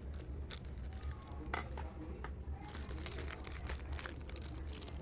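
Plastic courier packet crinkling and crackling as hands twist and pull it open, the crackle densest from about two and a half seconds in. A steady low hum runs underneath.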